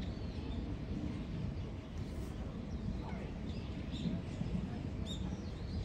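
Short, high bird chirps now and then, over a steady low background rumble of outdoor ambience.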